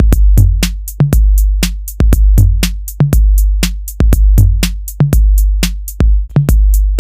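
Electronic intro music with a drum-machine beat and heavy sustained bass notes.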